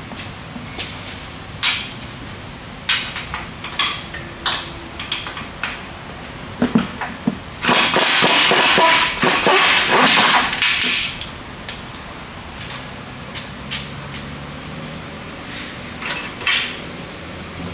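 Scattered metal clicks and knocks of wrenches working on the upper control arm bolts, with a loud rattling burst from an air-powered wrench for about three seconds near the middle as the bolts are undone.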